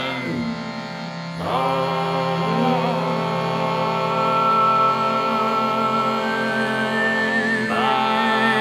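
Cantu a tenore singing: male voices hold a low, throaty drone. About 1.5 s in they re-enter with a sliding pitch after a brief dip. From a few seconds in, a thin, whistle-like overtone melody sounds above the drone and steps higher near the end.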